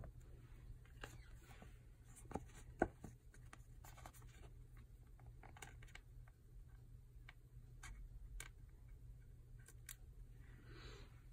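Quiet room with a steady low hum and scattered faint clicks and taps from handling small desk items, the two sharpest close together between two and three seconds in, and a faint rustle near the end.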